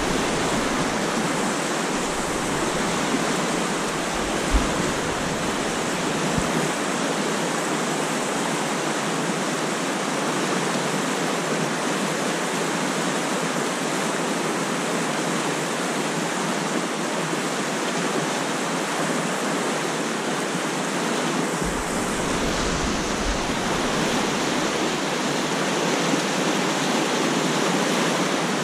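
Fast, swollen trout stream rushing over rocks in white-water rapids: a steady, loud rush of water.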